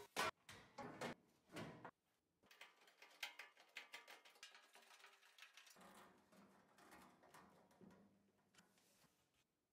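Faint clatter, knocks and scraping as a louvered steel back panel is handled and fitted onto a pellet grill's metal cart, with a few sharp knocks in the first two seconds, then softer rubbing and clicking that dies away.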